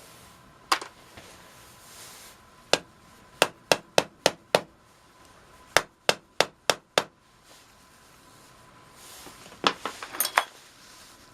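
Hand tools striking metal on a 1982 Honda Goldwing GL1100 carburetor bank. It comes as sharp taps: two single taps, then a quick run of five and a run of six, and a jumble of metal clinks near the end.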